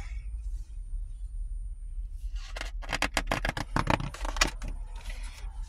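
A page of a large paper picture book being turned and handled, rustling and crackling for about three seconds starting a little after two seconds in, over a low steady rumble.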